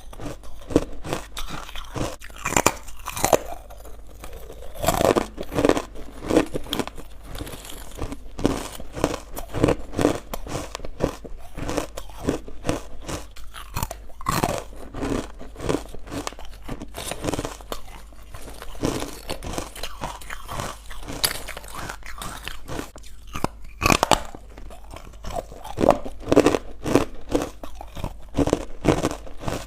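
Close-up crunching and chewing of chalky, powdery white ice bites made from carbonated water: a continuous run of rapid, crackly crunches as the ice is bitten and chewed, with a few louder bites.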